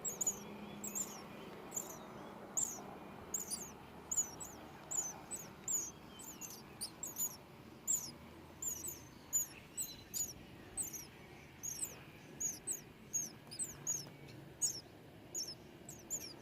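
Nestling baby birds chirping: rapid, high-pitched chirps, two or three a second without a break, the begging calls of hungry chicks.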